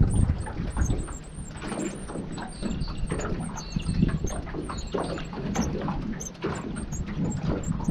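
Wind buffeting the microphone in an uneven low rumble, with small birds chirping high and repeatedly.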